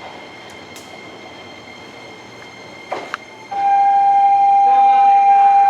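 Train horn: after about three and a half seconds of low platform noise, one loud, steady, single-pitched blast starts and carries on to the end.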